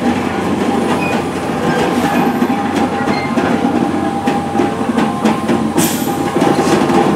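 C11 tank steam locomotive and brake van rolling slowly over the rails, with steady mechanical running noise and scattered clanks. A brief hiss comes near the end.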